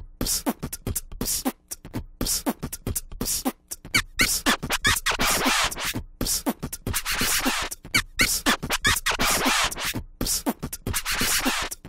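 Background music made of rapid, choppy percussion hits in the style of beatboxing, with brief dropouts between phrases.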